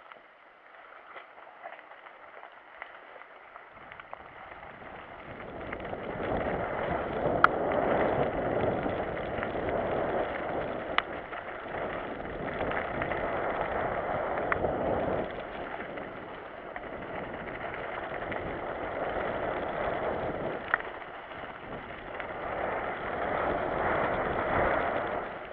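Mountain bike riding down a wet, muddy dirt trail: tyre noise on the rough ground and wind rushing over the microphone, rising about four seconds in and swelling and dipping with speed. A few sharp clicks from the bike come through over bumps.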